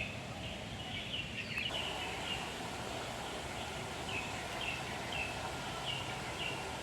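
A small bird chirping: a run of short, high chirps, about two a second in the latter half, over a steady outdoor background hiss.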